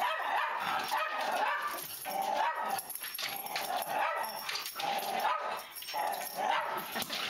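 Small dogs barking and yipping in a rapid, high-pitched string of repeated calls.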